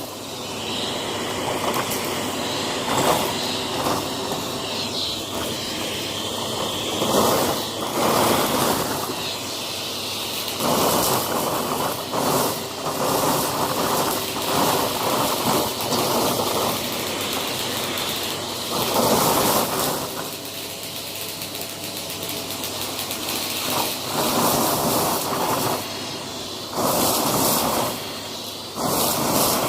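Close-up crunching and crumbling of something brittle, in irregular surges of gritty noise, each lasting from about half a second to two seconds.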